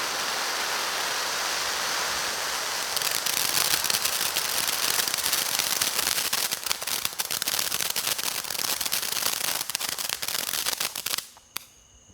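A consumer fountain firework burning: its gerbs spray with a steady hiss, then a dense crackling of rapid pops sets in about three seconds in. The effect ends suddenly near the end.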